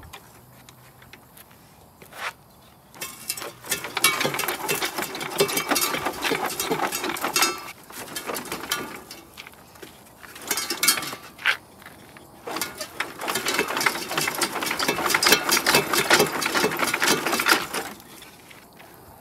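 Hand tools working on metal: rapid clicking and rattling, starting about three seconds in and coming in three spells of a few seconds each with short pauses between.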